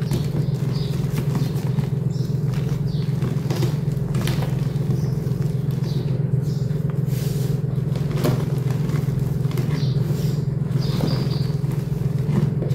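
Hands squeezing and crumbling soft homemade gym chalk and loose chalk powder, with light irregular crunches and crackles. A steady low hum runs underneath and is the loudest sound throughout.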